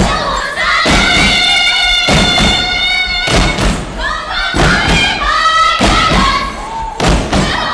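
Group of voices singing a Tibetan song in long held notes, over a heavy thump about every second and a quarter.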